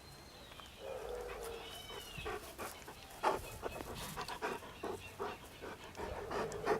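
A dog making short, irregular breathing and snuffling noises, with a couple of brief high squeaks about two seconds in.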